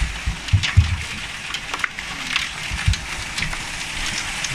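Hail and heavy rain pelting a wooden deck: a steady rain hiss with scattered, irregular ticks of hailstones striking, and a few dull thumps in the first second and again about three seconds in.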